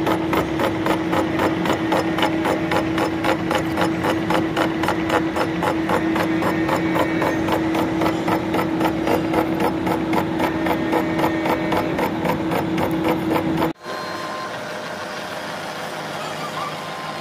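A face mill on a milling machine cutting a steel block: a steady hum with an even, rapid ticking of the cutter's inserts striking the metal, about four or five a second. Near the end this cuts off abruptly and gives way to a quieter, steady machining noise.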